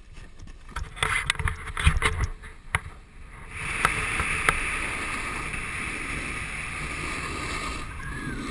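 A snowboard riding over snow, heard from a camera moving with the rider. Wind buffeting and uneven knocks come first, then about three and a half seconds in a steady hiss of the board sliding over the snow.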